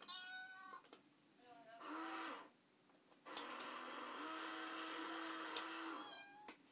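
Electronic cat money box set off by a cat's paw on its coin plate: a recorded meow at the start, a second short call about two seconds in, then about three seconds of a steady electronic tune, ending with another falling meow.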